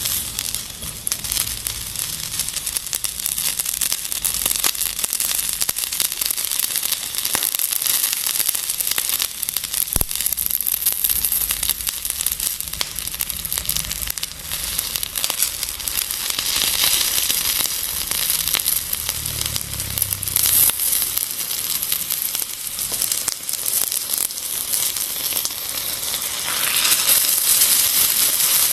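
Fire sizzling and crackling: a dense hiss packed with small pops, steady and growing louder near the end.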